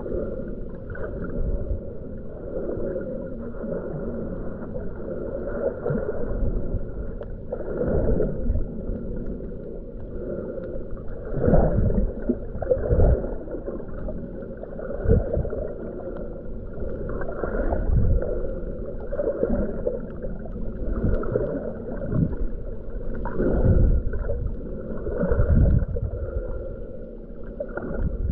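Underwater water noise picked up by a submerged camera: a low, dull rush with irregular swells every second or two.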